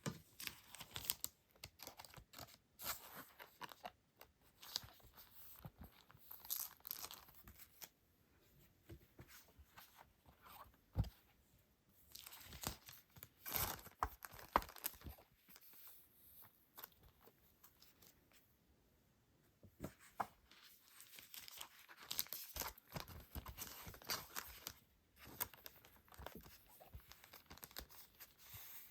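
Packaging being torn open and crinkled by hand during an unboxing: bursts of rustling and tearing with scattered sharp clicks.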